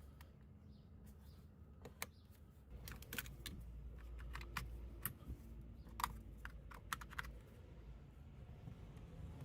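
Scattered light plastic clicks and rattles of wiring-harness connectors being handled and plugged into a door switch panel, over a faint low hum.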